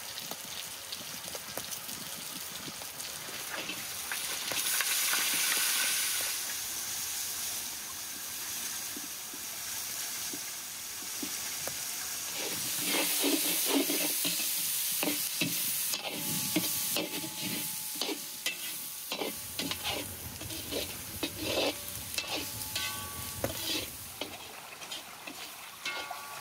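Chopped onion and tomato sizzling as they fry in a large metal cauldron. The sizzle swells about five seconds in. In the second half a metal skimmer scrapes and clicks against the pan many times as the mixture is stirred.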